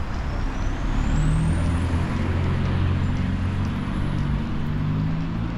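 A motor vehicle running in street traffic, its low engine sound swelling about a second in and holding, with a thin high whine that rises in pitch over the first two seconds and then holds steady.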